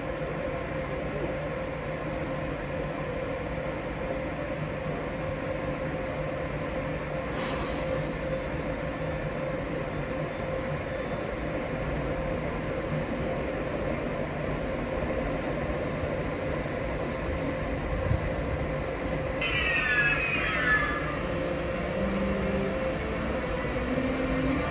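ÖBB class 1016 Taurus electric locomotive moving slowly with its train, giving a steady electrical hum with a held tone. There is a short hiss about seven seconds in and a brief wheel squeal around twenty seconds in. Near the end the traction converter starts its rising stepped tones, the Taurus's 'musical scale' as it draws power.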